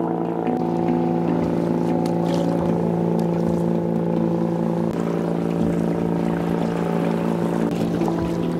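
Festival music playing: a melody of held notes changing over a steady low drone.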